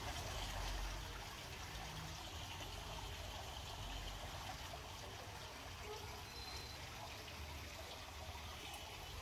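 Garden water wall fountain: water spilling down a stone-clad wall into its basin, a steady trickling splash.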